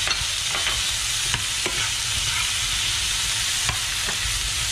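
Diced potato, onion, pork and shrimp sizzling in oil in a frying pan while a spatula stirs them, with a steady hiss of frying. A few sharp scrapes and clicks come from the spatula against the pan.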